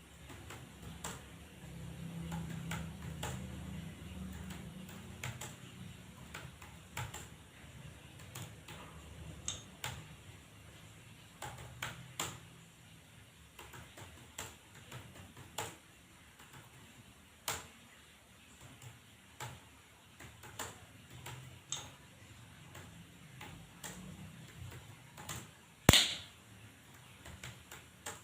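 Computer keyboard keys being typed at a slow, uneven pace: separate clicks about one or two a second, with one much louder key click near the end.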